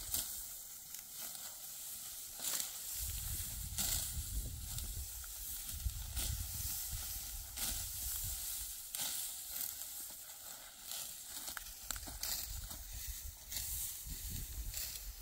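Dry wheat stalks rustling and crunching in repeated crisp strokes, about one every one to two seconds, as the wheat is harvested. A low rumble comes and goes underneath.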